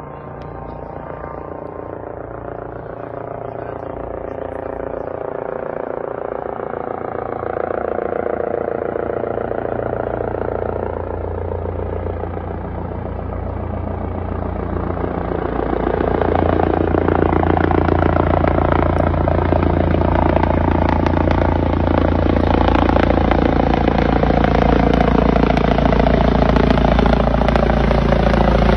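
Rescue helicopter coming in to land, its rotor and turbine noise growing steadily louder as it closes in overhead, with a clear jump in loudness about halfway through.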